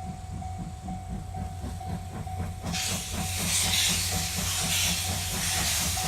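C57 180 steam locomotive running past with a steady rhythmic beat, against a level-crossing warning bell ringing about twice a second. About three seconds in, a loud hiss of steam sets in and continues.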